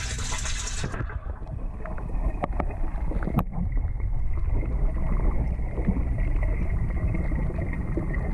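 Muffled, steady underwater rumble of water in a tilapia tank, with the inflow pouring in above heard through the water and scattered small clicks. The sound turns duller about a second in, losing its higher hiss.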